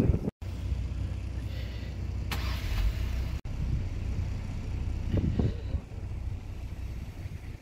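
Steady low rumble outdoors, with a short hiss about two and a half seconds in. The sound cuts out completely for a moment just after the start and dips briefly about three and a half seconds in.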